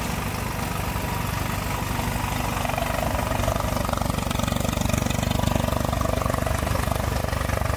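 Tractor engine running steadily to drive a Jayant groundnut thresher, with the thresher's drum churning through the plants. The green, rubbery groundnut vines keep the thresher from getting up to speed.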